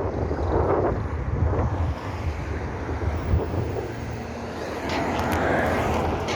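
Wind buffeting the microphone, a steady low rumble with a swell of noise about five seconds in.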